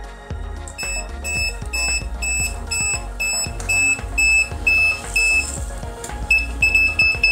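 BSIDE non-contact AC voltage detector pen beeping its alarm as it senses live voltage at a power strip and its cord: short high-pitched beeps, about three a second. They pause around five seconds in, then resume faster, over electronic background music.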